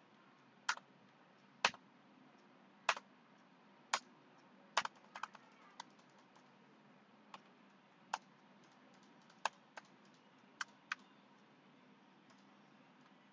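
Separate keystrokes on a computer keyboard, about fifteen irregularly spaced presses with a quick run of several around five seconds in, then stopping about two seconds before the end.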